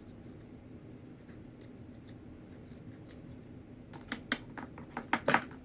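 Scissors snipping through a length of rope, a quick run of several sharp snips about four seconds in, over a faint steady hum.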